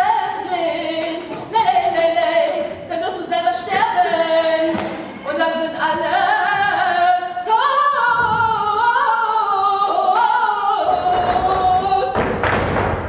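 A woman's high solo voice singing unaccompanied, holding long notes with vibrato and sliding between them. A few sharp thumps cut through the singing, with a louder thud near the end.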